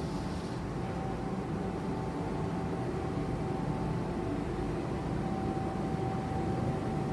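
Steady low background rumble with a thin, constant whine on top, unchanging throughout: continuous room or machinery noise.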